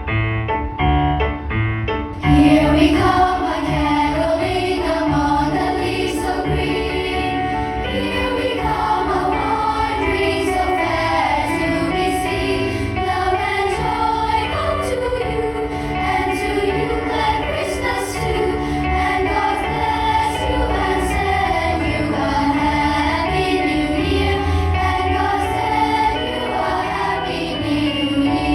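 A choir sings a Christmas medley. A few piano notes come first, and the massed voices come in about two seconds in and carry on over the accompaniment.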